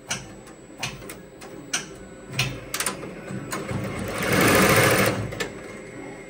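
ZSK multi-needle commercial embroidery machine running and stitching, with irregular sharp clicks over its steady running sound. The machine is on a test run after a part was replaced. About four seconds in, a louder rushing noise swells for about a second and fades.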